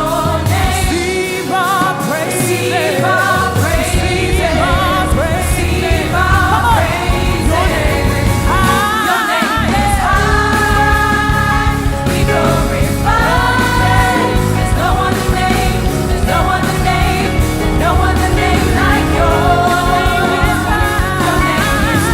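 Live gospel praise and worship music: singers with backing vocals over a band with bass. The bass drops out briefly near the start and again about nine seconds in.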